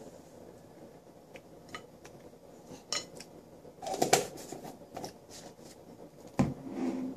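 Hands handling food and tableware at a table: scattered light clicks, a cluster of clicks and crinkling about four seconds in, and a single sharp knock about a second before the end.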